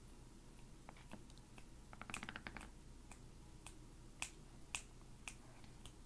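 Faint sharp clicks in a quiet room: a quick rattle of clicks about two seconds in, then single ticks roughly every half second.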